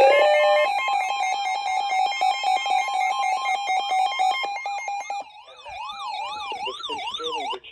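Electronic alert siren: a steady, rapidly pulsing alarm tone for about five seconds, then a fast rising-and-falling wail that cuts off abruptly near the end.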